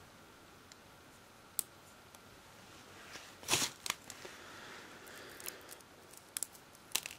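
Small rocks dropped by hand onto glue-coated model bases: a few faint, light ticks and rustles, with a short cluster of clicks about three and a half seconds in.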